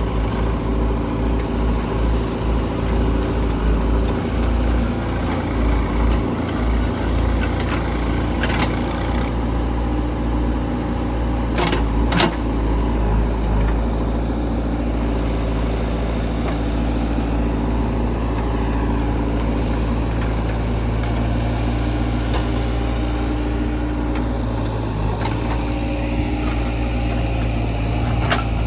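Diesel engine of a backhoe loader running steadily at low revs, with a few short sharp knocks, twice close together about twelve seconds in.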